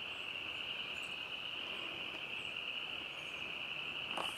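Steady high-pitched chorus of calling animals, with a sharp click near the end.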